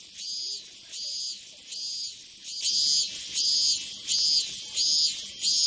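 Cicada calling: a rhythmic series of high-pitched buzzing pulses, about one and a half a second, growing louder about two and a half seconds in.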